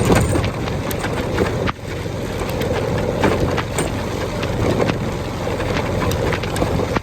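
Motorbike riding in heavy rain: steady engine and road noise with wind on the microphone and many sharp ticks of raindrops hitting it, briefly dropping away about two seconds in.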